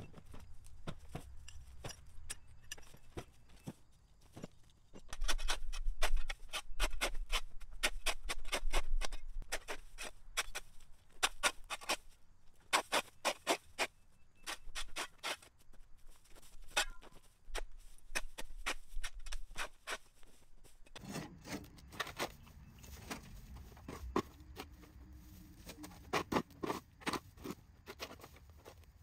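Rapid, irregular scraping and rustling strokes, loudest a few seconds in. About two-thirds of the way through the sound changes abruptly and a low steady hum joins the strokes.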